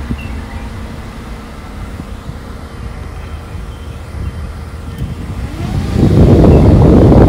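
Wind buffeting the microphone over the low rumble of a moving vehicle, the wind growing much louder about six seconds in.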